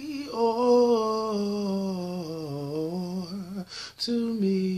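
A man singing unaccompanied: a long held note with vibrato that slides slowly down in pitch, a quick breath about four seconds in, then another held note.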